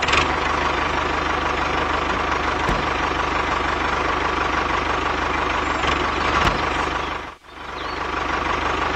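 Tractor diesel engine running steadily with an even chugging pulse. It cuts out briefly about seven and a half seconds in, then starts again.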